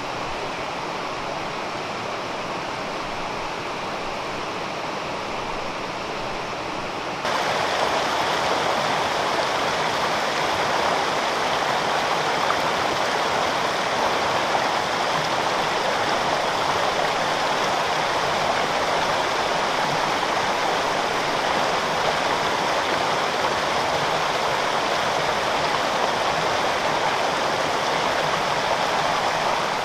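Waterfall and mountain-stream water rushing steadily. It turns abruptly louder and brighter about seven seconds in.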